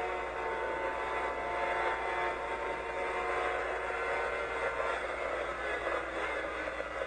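Sport motorcycle engine running at high revs, held steady at very high road speed and heard from on board.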